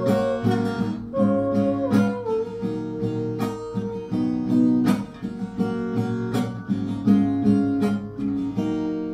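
Acoustic guitar strumming rhythmic chords, with a held melody line above that slides between notes. The last chord rings out and fades near the end.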